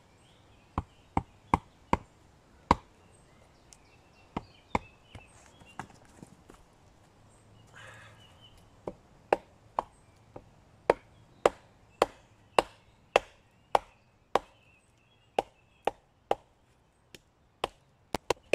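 Batoning: a wooden baton knocks sharply on the spine of a small full-tang carbon-steel bushcraft knife, driving the blade lengthwise into a dry oak log. The strikes come about two a second, with a short pause near the middle.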